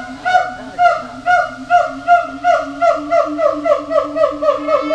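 A rapid series of short pitched honks, each dipping slightly in pitch. They come about twice a second at first and quicken to about four a second, over a lower pulsing tone.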